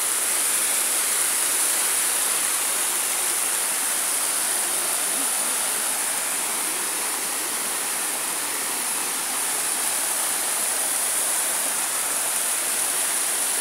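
Small waterfall pouring over rocks into a pool: a steady rush of falling water.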